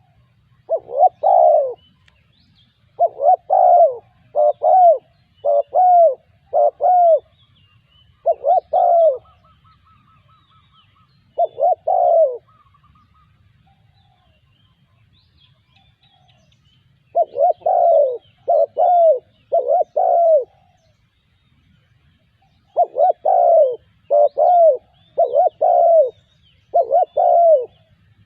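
Spotted dove cooing: repeated phrases of several coos, separated by pauses of a few seconds, the longest gap lasting about five seconds in the middle. Faint chirps of small birds sound higher up between the phrases.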